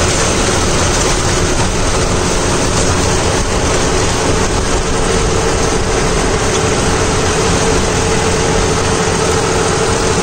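John Deere 5405 CRDI tractor's common-rail diesel engine running steadily under load, driving a Shaktiman Tusker rotary tiller through banana stalks, with a steady hum running through the noise.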